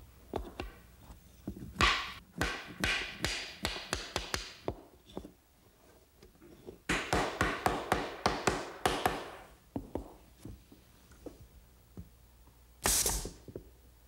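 Wooden mallet tapping a glued dovetail joint together between a pine drawer front and plywood drawer sides: two runs of quick, light blows. Near the end a pneumatic brad nailer fires once with a short hiss of air.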